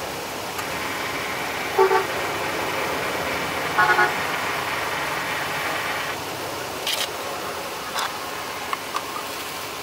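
Two short vehicle horn toots about two seconds apart over a steady hiss of road noise, which stops about six seconds in. A few light clicks follow near the end.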